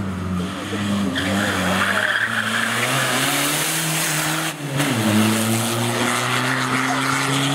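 Race car engine revving hard, its pitch climbing, with the tyres squealing as it is driven fast through a turn. The sound breaks off sharply about halfway through and the revving climbs again.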